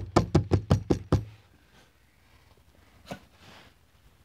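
A quick, even run of thumps, about six a second, from running footsteps and a jostled handheld camera, stopping after about a second. A single knock comes about three seconds in.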